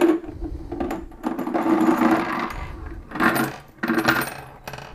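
Fired brass rifle cases sloshing and clinking inside a plastic jar of hot water as it is swirled. Near the end they are tipped out and clatter into a sink in a run of sharp metallic clicks.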